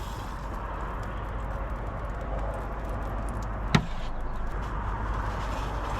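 Sausages sizzling as they cook, a steady hiss with scattered faint crackles and one sharp pop just under four seconds in.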